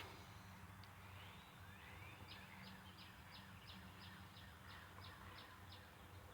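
Faint bird calls: a couple of rising whistles, then a quick series of about a dozen short, high notes, roughly three a second, over a low steady hum.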